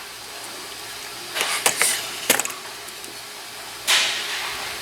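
Plastic car interior trim parts clicking and snapping as they are handled and fitted back into place: a cluster of clicks about one and a half seconds in, a single sharp click a little later, then a short rustle near the end.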